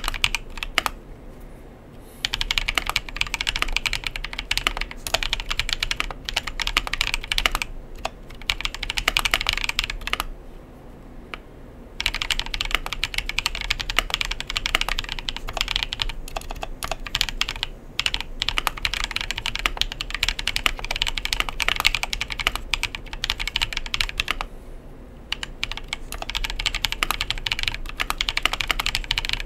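Typing on a KBDfans 60% custom mechanical keyboard with lubed Tecsee Neapolitan Ice Cream tactile switches and pudding keycaps: fast, continuous keystrokes. There are short pauses about a second in, around ten seconds in, and again near twenty-five seconds.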